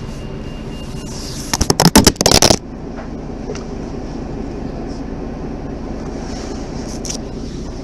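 Mercedes-Benz Citaro G articulated bus's diesel engine idling steadily. About a second and a half in, a loud burst of rough noise lasts about a second and drowns it out.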